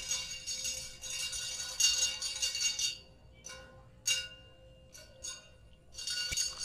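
Ryobi Ultra Power spinning reel being cranked, a metallic whirring as line is wound in: a long spell of winding, then a few short spurts with pauses, then steady winding again near the end, the start-stop retrieve of a frog lure being worked.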